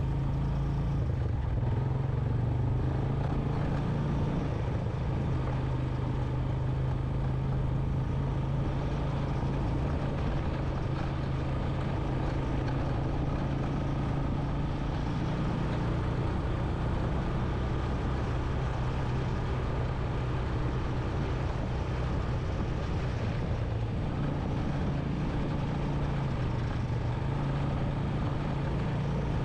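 Honda Recon 250 ATV's single-cylinder four-stroke engine running steadily while riding a rough dirt trail, with small changes in pitch a few times as the throttle varies.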